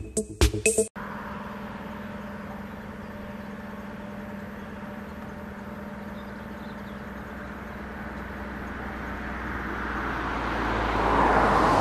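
Electronic music with a beat cuts off about a second in, giving way to a car driving on a road, heard from inside the cabin: a steady engine hum and road noise that grow louder over the last few seconds.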